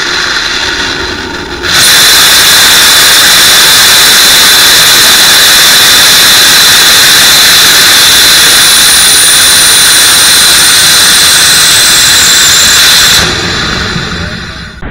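Homemade liquid-fuel rocket engine hot-firing at about half power: it starts abruptly, jumps to a loud, steady jet-like rush with a constant high whine about two seconds in, and a fainter whistle falls slowly in pitch partway through. It cuts back and tails off near the end as the burn shuts down.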